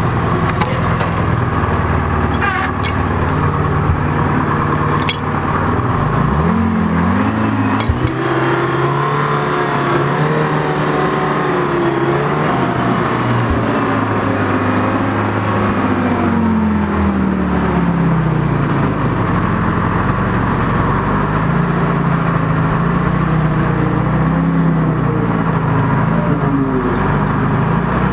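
A vehicle engine running steadily. About six seconds in it revs up, holds higher, then falls back between about twelve and seventeen seconds. After that its pitch wavers up and down, with a few sharp knocks in the first eight seconds.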